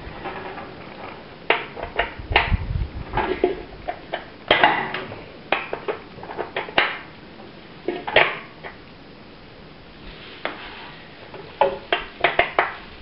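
Spanners and metal engine parts clinking and clattering: an irregular run of sharp metallic knocks and rattles with a few brief scrapes, as a 14 mm spanner is used on the engine.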